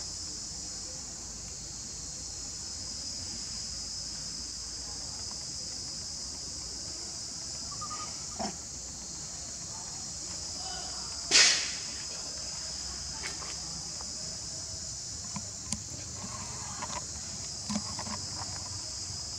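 Steady high-pitched chorus of insects, with a single sharp knock a little past halfway and a few faint clicks.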